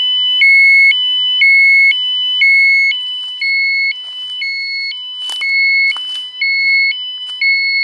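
Thermo Scientific RadEye B20 survey meter sounding its dose-rate alarm: a steady two-tone beep, high and low alternating about every half second, because the reading has passed its alarm threshold over a radiation hotspot in accumulated fallen leaves. A few crunches of footsteps in dry leaves come about two thirds of the way in.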